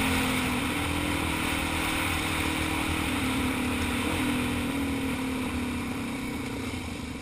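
Dual-sport motorcycle engine running at a steady cruising speed on a dirt trail, heard from on the bike with wind rushing past, easing off near the end as the rider slows.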